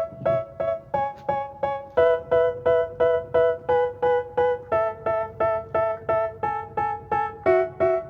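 Background music: a repeating electric piano figure of short plucked chords, about three a second, the chord changing every couple of seconds, the intro to a rap song.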